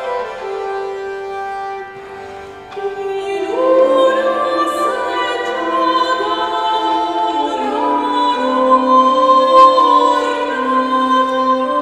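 Early-music trio of portative organ and bowed medieval fiddle (viola d'arco) playing sustained notes, joined about three and a half seconds in by a woman's operatic singing voice, which carries the melody from then on.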